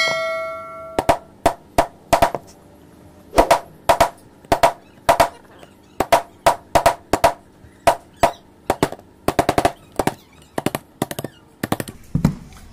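Hammer blows on a steel chisel driven into a hardwood block, chopping out the mortise for a wooden hand plane's blade: a steady run of sharp knocks, often in quick pairs and triples. The first blow carries a brief metallic ring.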